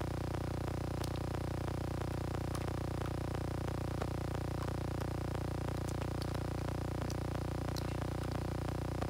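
Steady low hum, with faint small clicks now and then.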